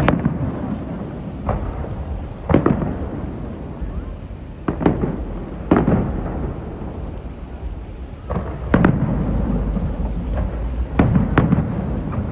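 Aerial fireworks bursting overhead: about eight sharp booms, irregularly spaced a second or two apart, over a continuous low rumble of echoing explosions.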